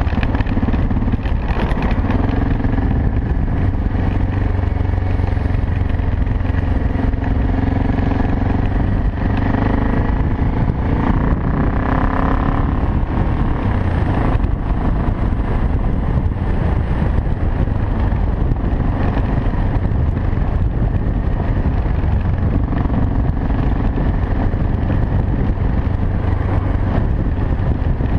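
BMW 650 GS single-cylinder engine running under load while riding on gravel, with the revs climbing briefly around the middle. Wind buffets the helmet-mounted camera's microphone.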